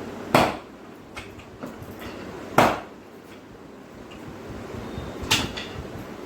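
Three sharp knocks, about two and a half seconds apart, each with a short ringing tail.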